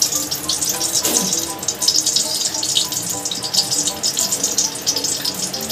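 Ghee crackling and sizzling as it melts and heats in a metal kadai, with a steady dense crackle of tiny pops. Background music plays under it.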